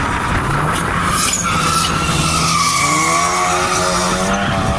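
Drag car launching from the start line with a long tyre squeal, its engine note climbing steadily as it accelerates away down the strip.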